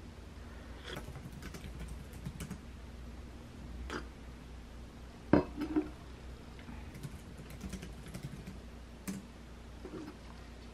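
Enamel mug of iced coffee handled on a tabletop: scattered light clicks and taps, with a sharp knock about five seconds in, followed by two smaller knocks.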